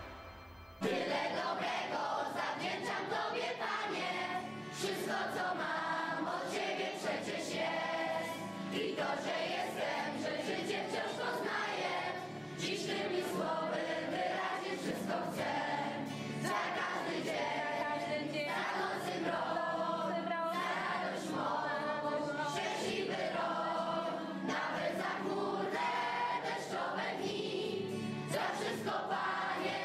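A group of children and adults singing a song together as a choir, starting about a second in.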